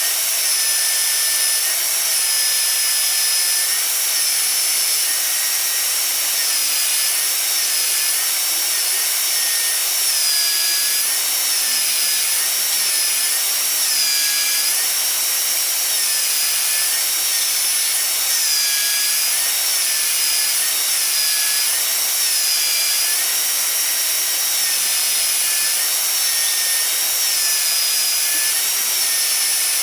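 Electric power tool motor with a high whine, cutting wood; its pitch dips briefly every couple of seconds as the blade or bit bites in and the motor loads down.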